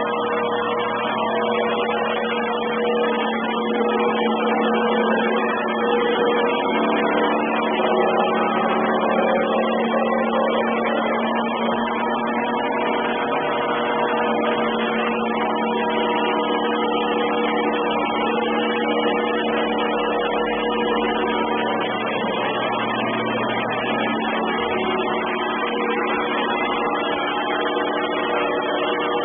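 Robot vacuum cleaner running steadily: a continuous motor hum with a few held tones over suction noise, heard heavily distorted.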